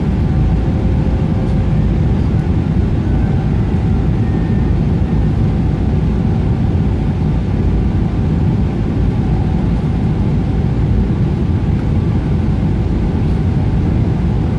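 Steady, loud cabin rumble of a Boeing 777-300ER on final approach with its landing gear down: engine and airflow noise heard from inside the cabin, with a faint steady hum above it.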